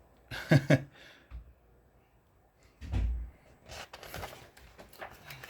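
Two short, loud vocal sounds from a person about half a second in, then a dull thump about three seconds in and light paper rustling: a picture book being handled and its page turned.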